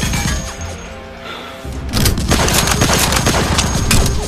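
Bursts of rapid gunfire over loud action music, easing off about a second in and picking up again near the middle.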